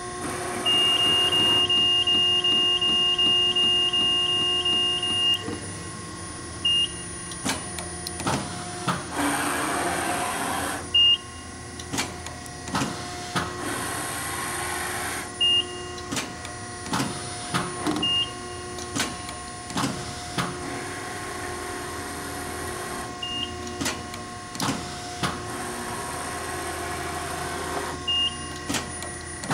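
Strippit Super 750 SG 44-ton hydraulic punch fabricator running a CNC program: a steady hydraulic hum under a series of sharp punching knocks, with four stretches of rushing noise. A high steady tone sounds for about five seconds near the start, then short high beeps every few seconds.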